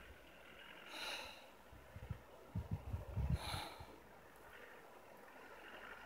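Faint breathing, one exhale about every two and a half seconds, with a cluster of low thumps around the middle.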